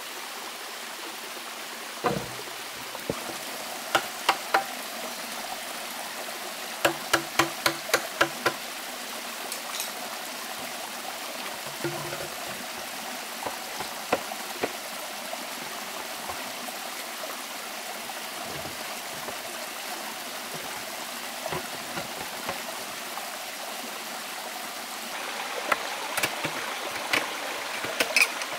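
Forest stream running steadily, with sharp, hollow knocks of bamboo being struck and chopped with a machete: a quick run of about seven strikes some seven seconds in, scattered single knocks, and a cluster of chops near the end.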